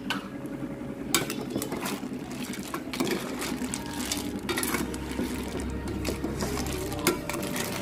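A metal ladle stirring a pot of boiling river snails and squash: snail shells clicking and clattering against each other and the pot, over the bubbling of the cooking liquid. There are several sharper clinks, the loudest a little after seven seconds in.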